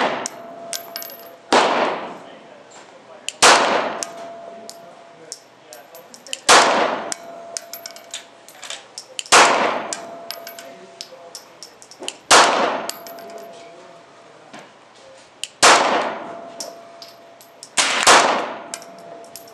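9mm Glock 19 pistol fired in slow, deliberate single shots: seven shots about two to three seconds apart, each ringing out and fading, with faint clicks between them.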